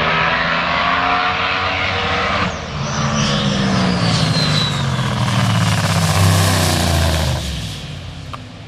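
Drag race car engines running hard down the strip; about two and a half seconds in the sound changes abruptly to a car passing close, its engine and a high whine falling in pitch as it comes off the power and slows under its parachutes, fading near the end.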